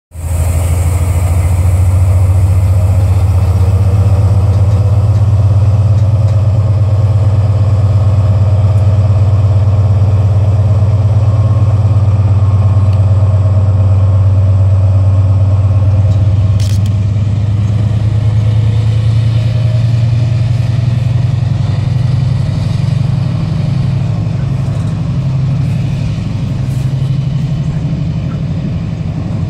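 Freightliner Class 70 diesel-electric locomotive's V16 engine working under power as it hauls a container train away from a stand, a loud steady low drone. About halfway through the sound eases a little and turns uneven as the locomotive draws away.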